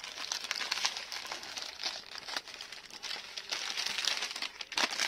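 Crinkling and rustling of the shop wrapping around sliced mortadella as it is unfolded by hand, a dense continuous crackle.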